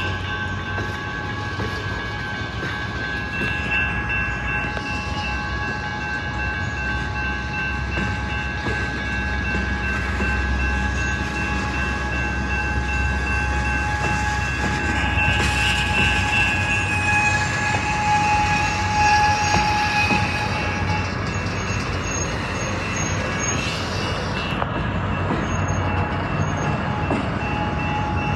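Union Pacific train moving, a low locomotive rumble under several steady high-pitched tones from the train, the strongest of which fades out about 21 seconds in. A short hiss comes about 15 seconds in.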